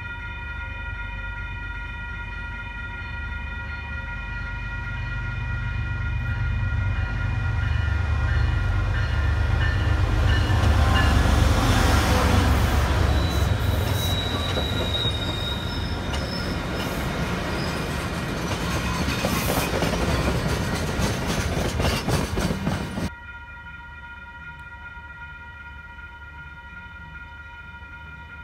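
A train passing close by: a rumble builds to its loudest about ten seconds in, then gives way to rapid clicking of wheels over rail joints, which cuts off abruptly about 23 seconds in. Steady high-pitched tones sound underneath throughout.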